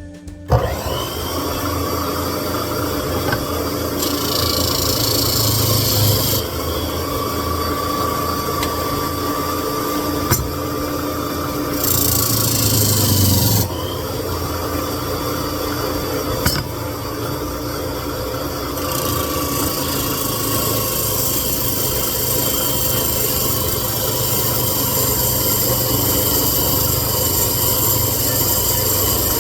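A power sander running steadily against a hardwood board, smoothing the bench pin blank; it starts about half a second in and its pitch and hiss shift slightly as the pressure changes.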